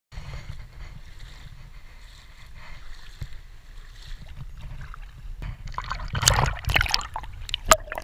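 Bare feet wading through shallow sea water, splashing, with the splashes thickest and loudest in the last two or three seconds. A steady low rumble runs underneath.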